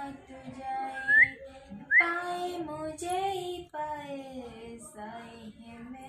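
A high voice singing a slow melody of long held notes that slide between pitches, with two quick upward sweeps about a second and two seconds in.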